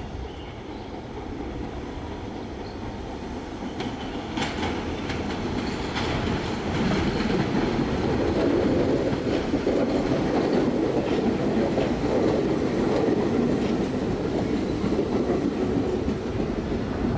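New York City subway shuttle train coming out of a tunnel and passing close by. A run of sharp wheel clicks on the track as it approaches, then a loud rumble from about halfway in that holds to the end.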